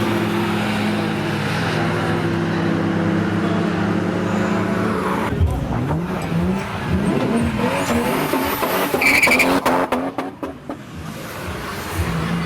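Toyota Supra engine running at a steady pitch, then revving up repeatedly from about five seconds in. A quick series of sharp cracks comes near the end.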